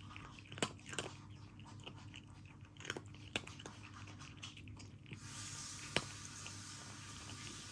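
A cat crunching dry kibble from a ceramic bowl, with irregular sharp crunches and clicks. A faint steady hiss comes in about five seconds in.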